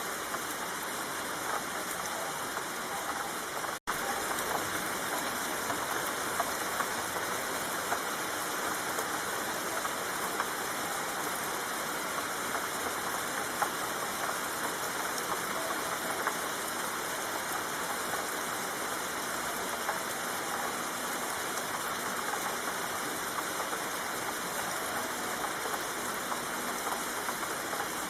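Steady rain falling, an even hiss with no let-up, cut out for an instant about four seconds in.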